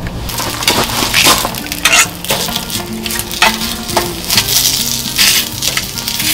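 Frozen chili-and-chive pancakes sizzling in a hot stainless steel pan, with repeated clinks and scrapes of a metal utensil against the pan.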